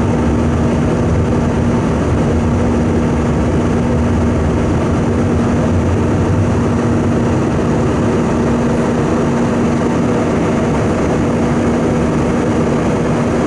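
Airbus A320 cabin noise in flight: a steady, loud roar of the jet engines and airflow, with a constant hum running through it.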